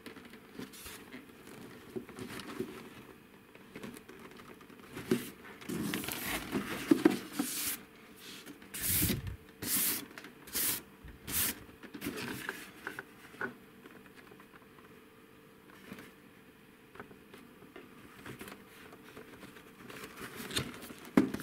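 Cardboard and plastic packaging handling: a boxed toy rubbing and scraping against the sides of a cardboard shipping carton. The scraping comes in irregular bouts, with a run of four or five louder scrapes less than a second apart around the middle and a sharp knock near the end. A faint steady hum sits underneath.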